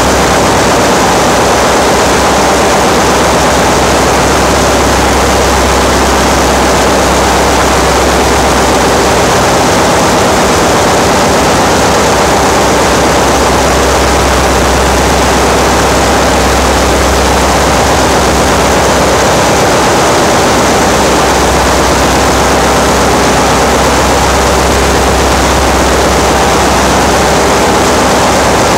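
Loud, steady engine-room machinery noise: a constant low drone under a broad hiss that never lets up.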